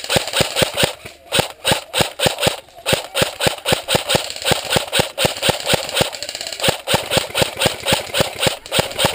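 Rapid, evenly spaced sharp clicks, about four or five a second, over a steady rasping hiss.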